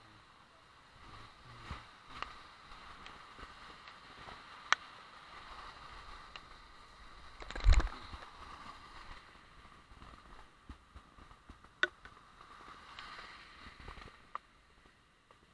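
Tyres hissing and swishing over a rain-soaked road, with a few sharp clicks and one loud knock about eight seconds in, when the camera is jolted.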